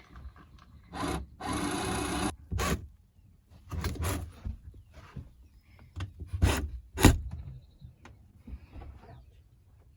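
Power drill boring through the van's carpet-lined wall to make the hole for an electrical box. It runs in short bursts in the first few seconds, followed by scraping and knocks, with two loud knocks past the middle.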